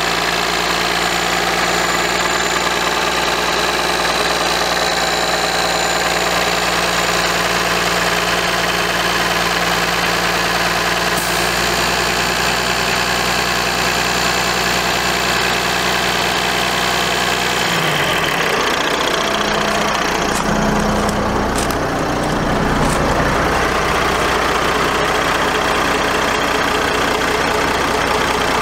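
Cummins ISC straight-six diesel engine idling steadily, heard up close in the open engine bay. Its low hum shifts in tone about two-thirds of the way through.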